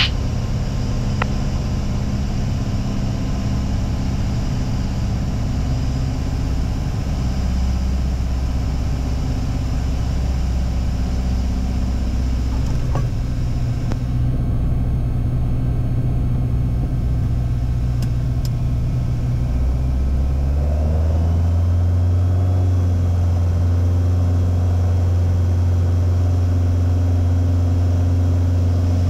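Piper Arrow's engine and propeller heard from inside the cockpit during a touch-and-go: a steady low drone through the landing roll, then about two-thirds of the way through power comes up and the engine note rises in pitch, grows a little louder and holds steady for the takeoff roll.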